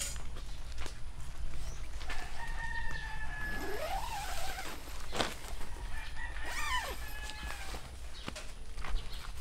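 A rooster crowing twice: a long crow starting about two seconds in and a shorter one about six seconds in. There is a sharp click between them.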